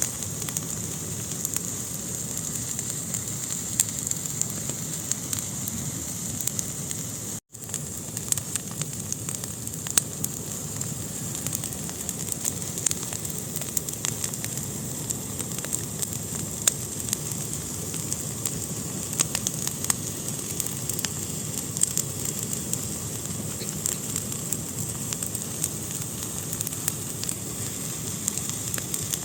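Fire burning in a fireplace: a steady hiss with frequent sharp crackles and pops. The sound drops out for a split second about seven seconds in.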